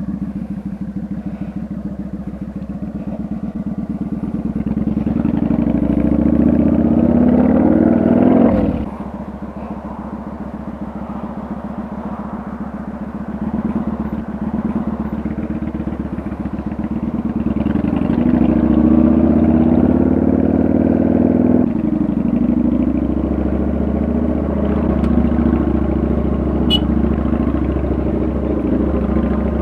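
Kawasaki Vulcan 900 V-twin engine pulling the motorcycle along, its pitch climbing under acceleration and then falling off sharply about nine seconds in. It builds again and falls off once more a little after twenty seconds.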